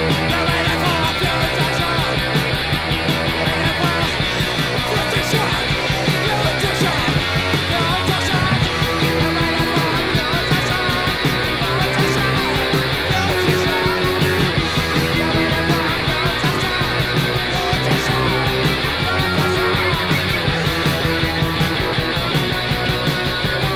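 Post-punk noise rock recording: electric guitar, bass and drums playing loudly and steadily.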